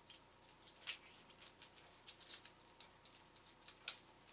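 Faint scattered clicks of small 3D-printed plastic robot parts and clips being handled and fitted together by hand. A sharper click comes about a second in and another near the end.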